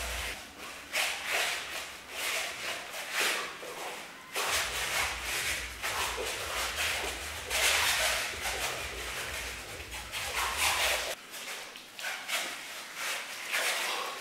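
A person shadowboxing: sharp, hissing exhalations with the strikes and feet shuffling on a wooden floor, coming in irregular bursts.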